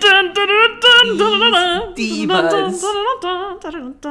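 A woman singing a short tune unaccompanied, holding wavering notes; a second, lower voice overlaps for a moment in the middle.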